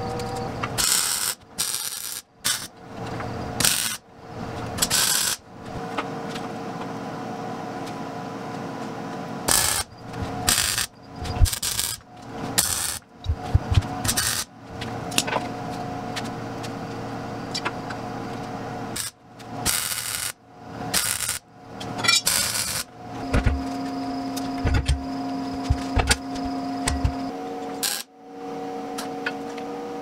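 Steel fabrication work: about a dozen short bursts of hissing noise from metalworking tools on bare steel, with a few low knocks of handled steel and a steady background hum.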